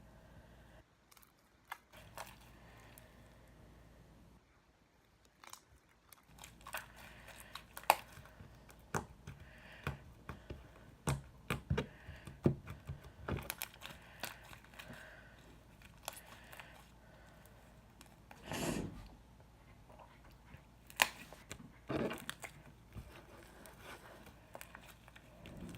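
Hands kneading and pulling apart slime mixed with diaper filling, giving scattered sharp crackles and sticky tearing sounds that begin about six seconds in.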